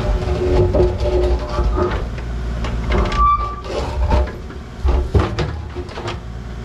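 An engine running under the work, with irregular clanks and knocks of equipment being handled over it and a brief squeal about three seconds in.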